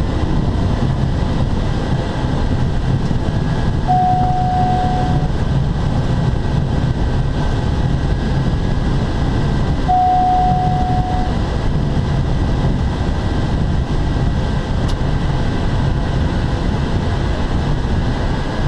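Cabin noise of a TBM 850's Pratt & Whitney PT6A turboprop engine and MT propeller: a loud, steady drone with a faint high whine. A steady beep sounds twice, about six seconds apart.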